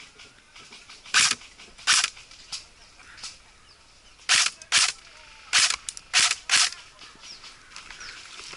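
Airsoft guns firing: about nine sharp shots, irregularly spaced, some in quick pairs, over a quiet outdoor background.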